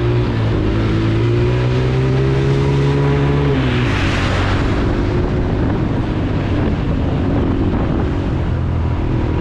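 Honda TRX90 ATV's small single-cylinder four-stroke engine pulling under throttle, its pitch rising for about three seconds, then dropping sharply with a brief burst of hiss. It runs on at lower revs.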